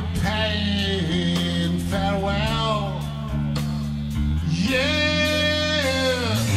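Live doom metal band playing a slow, heavy song: electric guitar, bass guitar and drums, with long melodic lines that bend up and down over the low notes.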